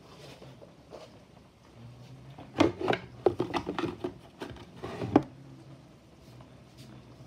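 A quick run of knocks and clatter as small toiletry containers are handled and set down, from about two and a half to five seconds in.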